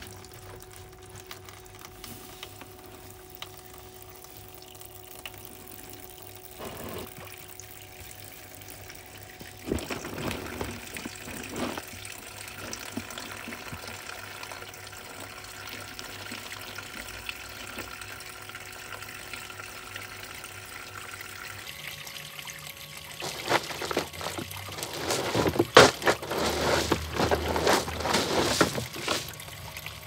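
Water pouring and trickling into a plastic tub from a hose, with a faint steady hum beneath. In the last several seconds it grows louder, with irregular splashes and knocks.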